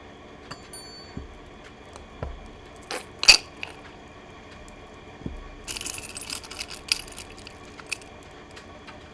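Rune stones clicking and rattling together as they are shuffled and drawn. There are scattered single clicks, the loudest a little over three seconds in, and a burst of rattling about two-thirds of the way through.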